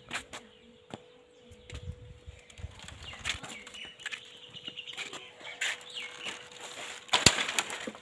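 Footsteps and rustling while walking with a handheld phone, over a faint steady hum, with a sharp knock near the end.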